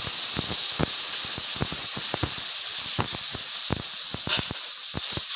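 Water hitting a hot kadai of frying spice paste (onion, ginger-garlic paste and tomato), sizzling and hissing as it turns to steam, with frequent small crackles and pops.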